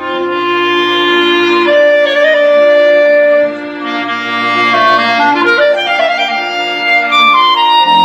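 Live classical music from a small orchestra: a melody of long held notes, dipping briefly about three and a half seconds in, then a quick run of notes near the middle.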